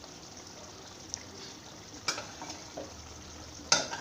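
Chicken and potato curry cooking in a pot with a steady frying sizzle, and a few sharp knocks of the stirring utensil against the pot, the loudest near the end.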